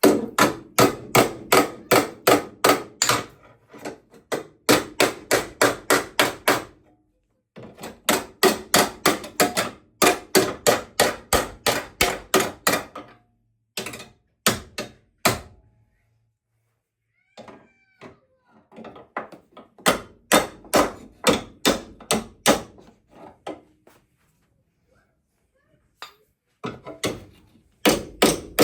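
Hand hammer striking the car's bent steel bracket or panel to straighten it, in quick runs of blows about four a second, with short pauses between runs.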